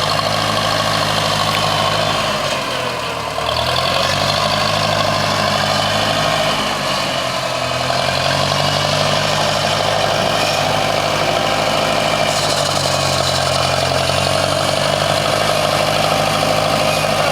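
An engine running steadily, its pitch dipping briefly about three seconds in and settling back.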